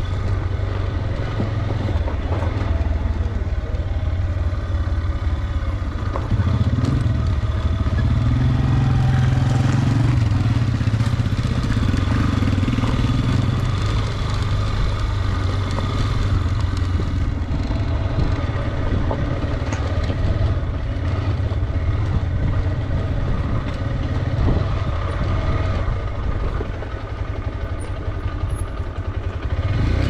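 Motorcycle engine running at low speed on a rough gravel descent, with road and wind noise, growing louder for several seconds in the middle as it works harder.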